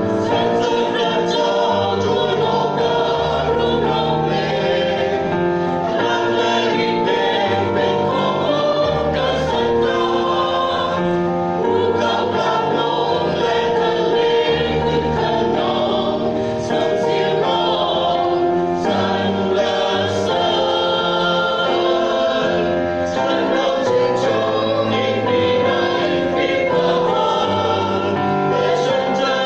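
Mixed choir of women's and men's voices singing a Christian hymn in harmony, with long held notes.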